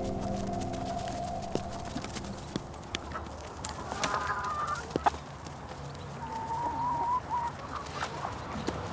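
Farmyard chickens: a short clucking call about four seconds in, then a rooster crowing once for about a second, starting about six seconds in.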